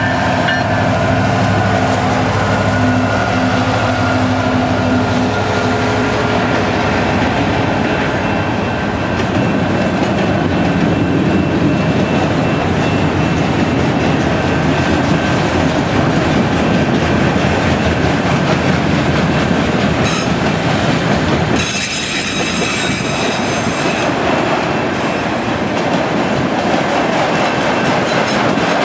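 CN freight train passing close by: a diesel locomotive's engine drone at first, then enclosed autorack cars rolling past with a continuous wheel rumble and clatter on the rails. High-pitched wheel squeal cuts in briefly about two-thirds of the way through.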